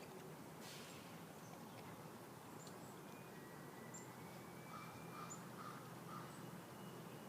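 Faint sounds of a Bernese Mountain Dog puppy chewing raw chicken necks: a few soft crunches and clicks. Faint bird calls sound in the background, including four short calls about five seconds in.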